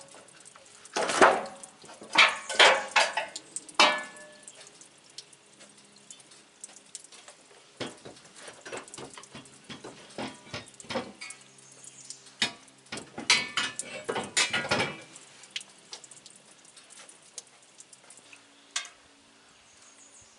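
Irregular clattering and knocking of hard objects being handled, in several clusters of sharp hits with a lone knock near the end.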